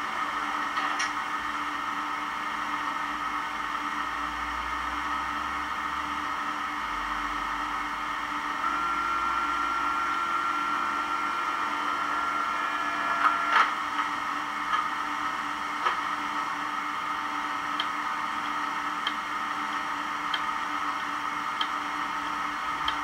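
DCC sound decoder in a Hornby Eurostar model playing recorded Eurostar standstill sounds through its small speaker: a steady mechanical hum. A second steady tone joins partway through and stops with a couple of clicks, and light ticks then recur about every 1.3 seconds.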